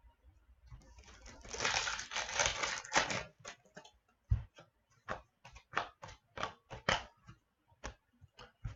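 Trading-card pack wrapper rustling, then a run of short sharp clicks as hockey cards are handled and slid over one another.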